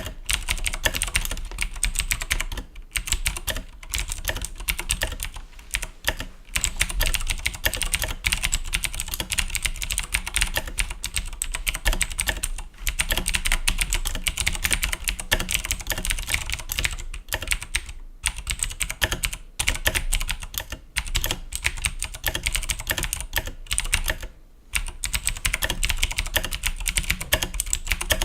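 Fast continuous typing on a mechanical keyboard with clicky Cherry MX Blue switches, each keystroke a sharp click, broken by a few short pauses.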